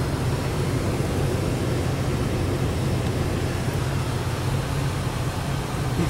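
Steady low mechanical hum with an even rush of air, typical of running HVAC equipment heard close to the ductwork.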